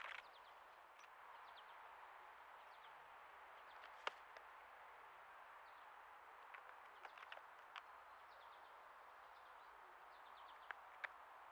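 Quiet woodland ambience with faint distant bird chirps, a brief scuffle at the very start and scattered light taps, an American crow's beak and feet on a rotting log.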